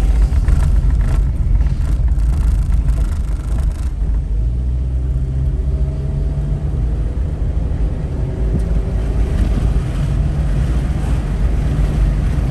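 Steady low road and engine rumble inside a moving car, with a few light knocks in the first few seconds.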